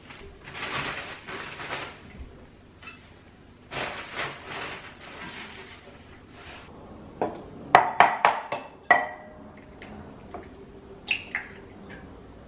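Plastic produce bag crinkling in two stretches as spinach leaves are shaken out into a stainless-steel colander, then a quick run of sharp clinks and knocks of kitchenware, the last one ringing briefly. A couple of crisp taps follow near the end.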